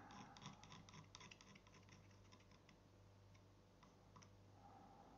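Metal palette knife dabbing and scraping oil paint on a painting board: faint, quick little clicks and scratches that thin out after about two and a half seconds, with a couple more near the end.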